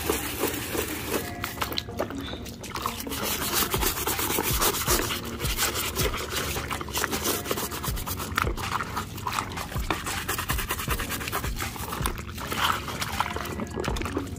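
A brush scrubbing a plastic toy bus in rapid, scratchy back-and-forth strokes that go on with little pause.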